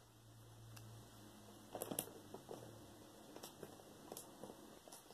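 Faint scissor snips and crinkling of a plastic mailer bag being cut open: a scatter of light clicks and rustles.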